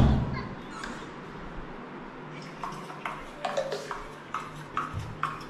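A door bangs shut with one sharp knock. Then a low steady hum runs, with short, high chirps scattered over it.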